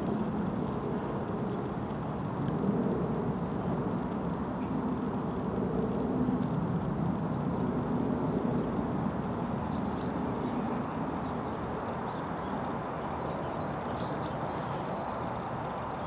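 Small birds giving short, high chirps every few seconds over a steady low background rumble.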